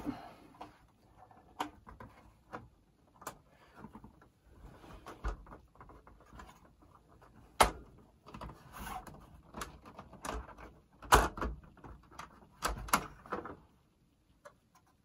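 Clicks, clacks and light knocks of a Sanyo M-W1L boombox's plastic casing and cassette doors being handled while it is taken apart, with sharper clacks about seven and a half and eleven seconds in.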